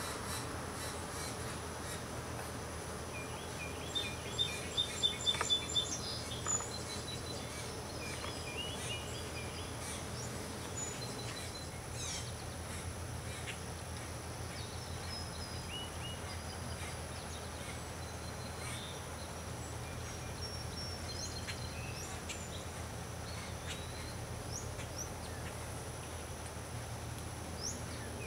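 Garden ambience with small birds chirping, a quick cluster of short high chirps a few seconds in and scattered ones after, over a steady low background hum.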